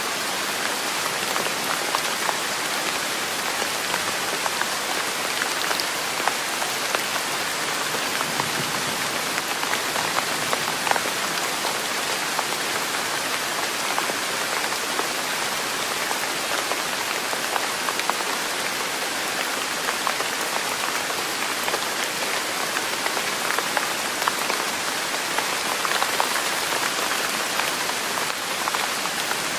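Steady rain falling, an even hiss with many small individual drop ticks scattered through it.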